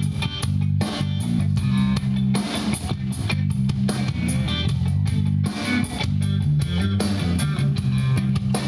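Live country band playing amplified through a PA: electric guitar, bass guitar and drum kit with a steady beat.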